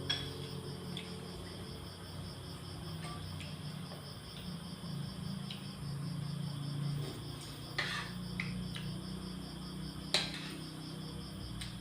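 Crickets chirping in a steady, evenly pulsed high trill, with a few light clinks of utensils against dishes about eight and ten seconds in, over a low steady hum.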